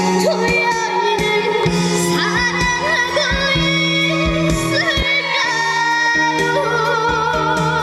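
Trot song played loud over the PA, a backing track with a steady beat and a female voice singing over it; a long held note with vibrato near the end.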